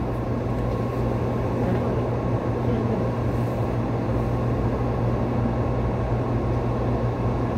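Steady low hum and rumble of a standing Busan Metro Line 4 rubber-tyred light-metro train, its onboard equipment running while the train is stopped.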